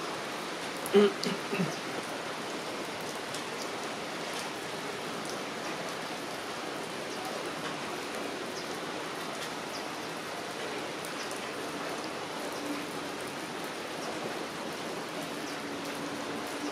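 Steady rain falling, an even hiss with scattered drops ticking close by. About a second in, a brief louder sound of three short pitched notes cuts through, and a faint steady hum comes in near the end.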